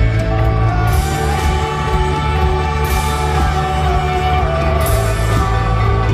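Rock band playing live at full volume, with held guitar notes over heavy bass and a cymbal crash about every two seconds.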